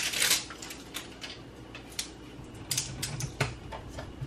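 Plastic screw cap of a bottle of barbecue sauce being twisted and worked open: scattered sharp clicks and ticks, with several in quick succession near the end.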